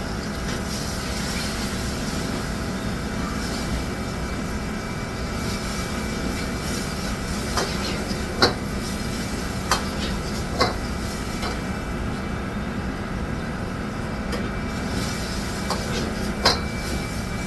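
Steady mechanical hum of a commercial kitchen, with a few sharp clinks and knocks of kitchenware, several in the middle and a few more near the end.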